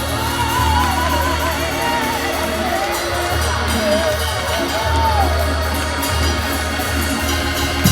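Church gospel music: sustained low organ and bass notes with a wavering, sung-sounding melody line over them.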